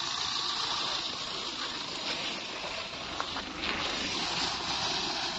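Maruti Suzuki Swift hatchback driving past on a dirt ground: a steady, even rushing hiss of tyres on loose dirt mixed with wind, with no clear engine note.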